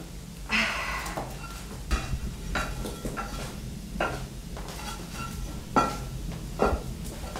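Wood being stirred in an open-hearth log fire: about half a dozen sharp clinks and knocks, each with a short metallic ring, after a scraping rustle about half a second in.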